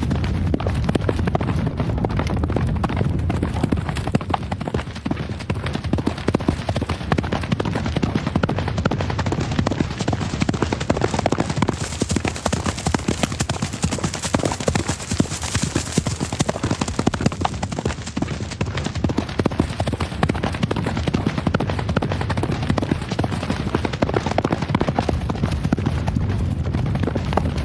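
Horse hooves clip-clopping in a dense, continuous run of strikes, several horses galloping together. A brighter hiss swells in the middle.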